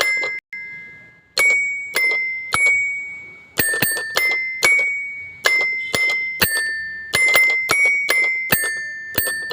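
Background music of bell-like struck notes, each ringing out high and fading, about two a second, with a short break near the start.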